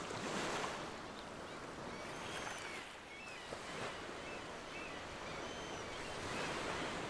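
Soft ocean waves washing onto a shore, swelling once near the start and again near the end, with a few faint high chirps in between.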